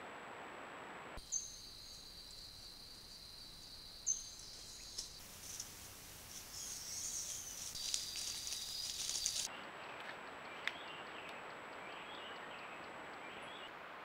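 A steady high insect drone with two short high chirps, then an armadillo rustling and scratching through dry leaf litter, the rustling growing louder for a few seconds before giving way to a steady hiss with faint insect chirps.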